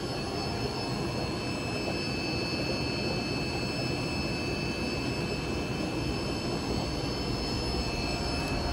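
Steady hum and rush of aquarium air pumps and filters running, with a few faint, high, steady whines over it.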